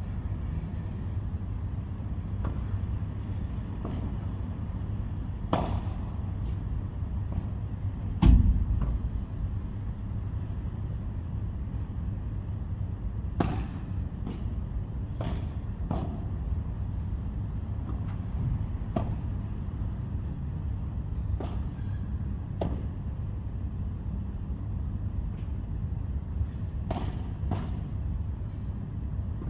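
Padel ball struck back and forth by rackets: sharp pops at irregular intervals, with a loud thud about eight seconds in, over a steady low rumble and a steady high-pitched whine.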